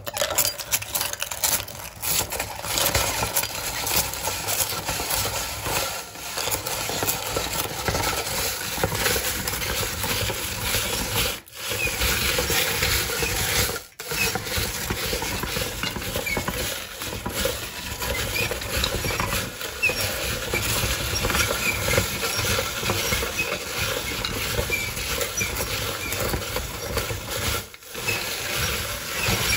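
Hand-cranked metal meat grinder crunching dry golden sticks into fine crumbs: a dense, continuous crackling and grinding with a few short breaks.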